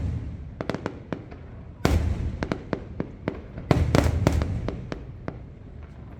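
Fireworks display: shells bursting in rapid clusters of sharp bangs over a low rumble, with a dense volley starting about two seconds in and another near four seconds.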